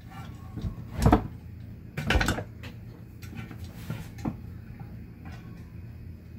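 UFP A-60 trailer brake actuator's inner unit being slid into its steel sleeve: metal scraping and knocking, with two louder knocks about one and two seconds in, then lighter taps and scrapes.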